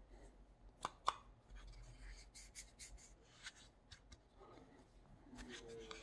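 Faint handling noises of a Kobalt folding pocket knife turned in the hands: two light clicks about a second in, then soft scattered ticks and rubbing.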